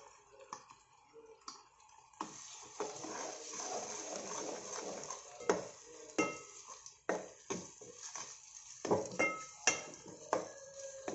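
A steel spoon scraping and tapping as a wet spice paste goes into an aluminium pot of hot oil, fried onion and tomato, which sizzles for a few seconds about two seconds in. Then stirring, with the spoon clinking against the pot's sides so that the pot rings briefly.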